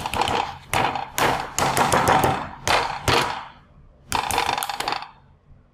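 Wooden rolling pin beating raw pork belly on a wooden chopping block, in about five bursts of rapid blows with short pauses between. The meat is being pounded to tenderise it.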